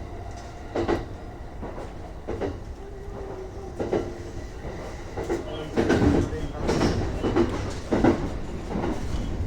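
E235 series 1000 electric multiple unit running into a station, heard from inside the front car: the running rumble with irregular clacks and knocks as the wheels cross rail joints and points, coming thicker toward the end.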